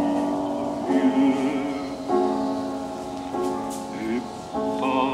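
Music: slow, held chords of several sustained notes, changing about every second or so.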